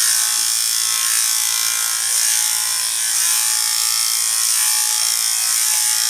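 Electric dog-grooming clipper fitted with a guard comb, running steadily as it is pushed through a dog's fluffed coat, with an even motor buzz and hiss.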